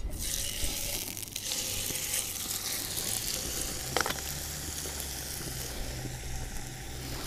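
Smoked back bacon sizzling in hot cooking oil in a frying pan on a propane camping stove, the sizzle starting sharply as the rasher is laid in. A single brief click about four seconds in.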